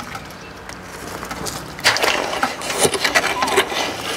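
A rake worked down into a foundation trench of wet concrete, scraping and knocking against the timber shuttering. The irregular scrapes and knocks start about two seconds in.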